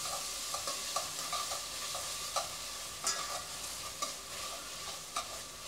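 Sofrito of onion, peppers, garlic and tomato paste sizzling steadily in the pot as it is stirred, with a few light scrapes and taps of the stirring utensil against the pot.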